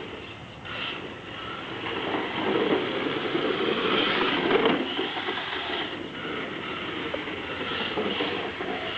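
HSP Flying Fish RC drift car running over a bumpy driveway: a continuous rattling clatter of the tyres and chassis on the rough surface, with the motor's whir swelling and fading as the car speeds up and slows.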